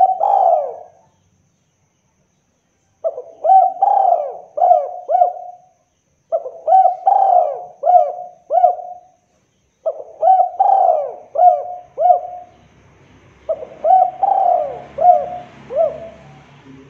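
Spotted dove (derkuku) cooing: repeated phrases of four or five quick coo notes, a new phrase about every three and a half seconds.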